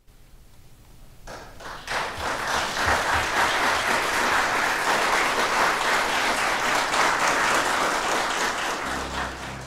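Audience applause from a small seated crowd clapping. It begins faintly, swells to full within about two seconds, holds steady, then eases off near the end.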